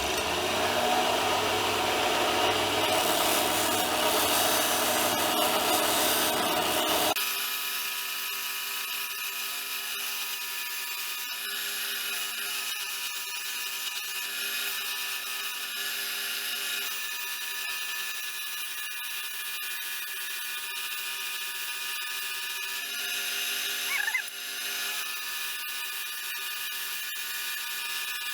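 A motor-driven grinding machine runs steadily while a steel vise part is held against it to polish it to a brighter shine. It is loudest for about the first seven seconds, then the deep rumble cuts out suddenly and a lighter, steady running continues.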